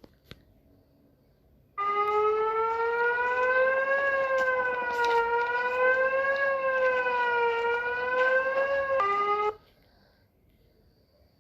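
Emergency alert siren tone: a single electronic tone that starts abruptly about two seconds in and slowly rises and falls in pitch for about seven seconds. It steps down briefly in pitch and then cuts off suddenly.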